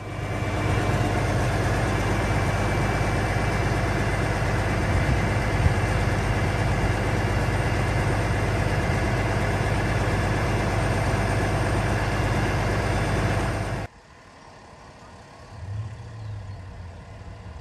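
A large vehicle's engine idling loud and steady, cutting off suddenly about fourteen seconds in, with only a faint low engine hum after.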